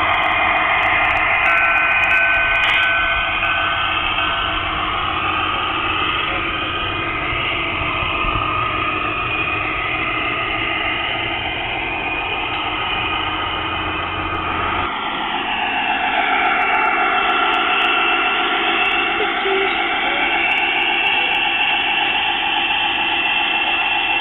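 Large-scale (G gauge) model diesel locomotives running on garden track: a steady whine of electric motors and gears with many pitches at once, over a rumble of wheels on the rails. About 15 seconds in the low rumble drops away and some of the whine pitches slide up and down.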